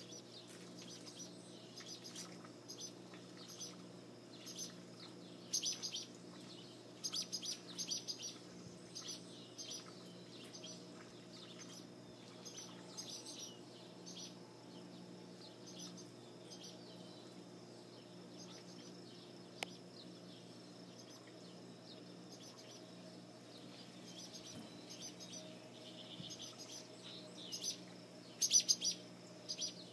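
Birds chirping: many short high chirps in quick groups, loudest around six to eight seconds in and again near the end, over a steady low hum.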